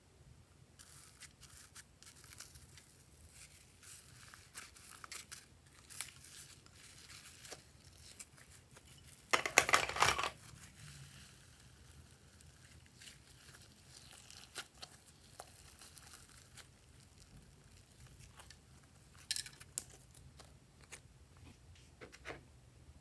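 Hands working glossy slime: soft sticky crackles and small pops as it is stretched and pulled. One louder tearing rustle lasts about a second around the middle, and a short sharper crackle comes a few seconds before the end.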